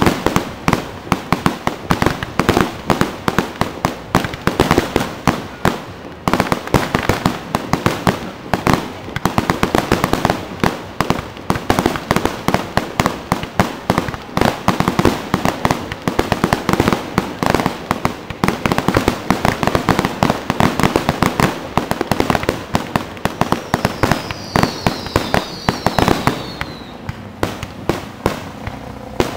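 Aerial fireworks shells bursting in a rapid, continuous barrage of bangs, several a second. A few short falling whistles come near the end, and the bangs thin out just after.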